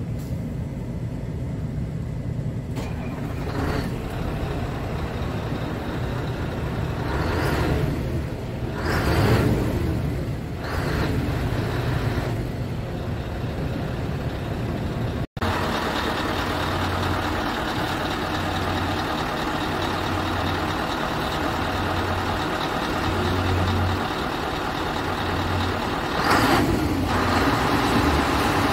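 Scania R-series tipper truck's diesel engine idling steadily, heard first inside the cab and then from outside beside the truck, with a few brief louder swells.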